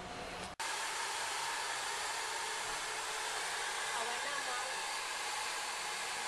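Handheld salon hair dryer blowing with a steady, even hiss. It comes in after a brief gap about half a second in.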